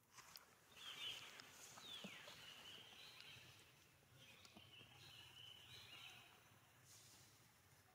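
Faint high-pitched animal calls over a quiet outdoor background, one falling in pitch about two seconds in.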